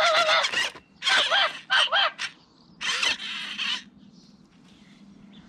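Anko toy robot dog in guard mode playing recorded dog barks through its small built-in speaker, several harsh barks over the first four seconds.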